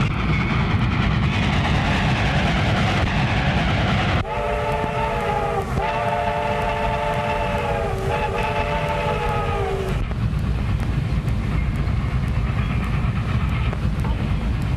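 Steam train running with a steady rumble while its whistle sounds a chord in three long blasts, starting about four seconds in and ending near ten seconds.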